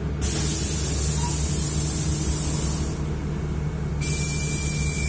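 City bus standing at a stop with its engine idling, a low steady hum. Over it comes a loud hiss that starts just after the beginning, fades about three seconds in and returns a second later, and a thin steady high tone joins near the end.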